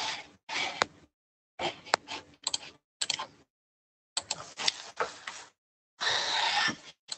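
Irregular clicks and rustling in short bursts that cut in and out abruptly, with a longer hiss of noise near the end.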